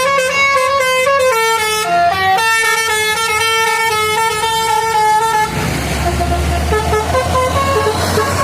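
A bus's telolet musical air horn plays a loud tune of stepping notes. About five and a half seconds in, the rumble of the bus engine driving past takes over, with fainter horn notes still sounding over it.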